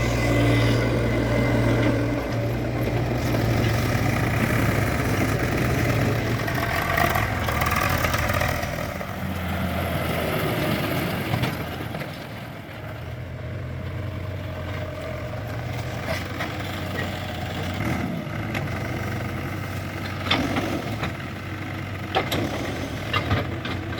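Heavy diesel engines of an excavator and farm tractors running steadily. The engine note drops and quietens about halfway through, and a few sharp knocks come near the end.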